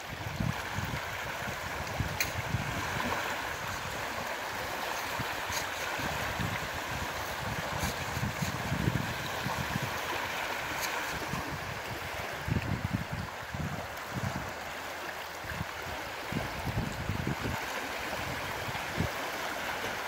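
Small Baltic waves lapping and washing over shoreline stones, a steady wash of surf, with wind gusts buffeting the microphone now and then.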